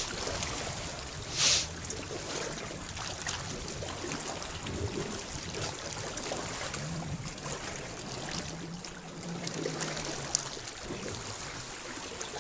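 Shallow seawater washing and lapping against coral rocks at the shoreline, a steady watery hiss, with one brief louder splash about a second and a half in.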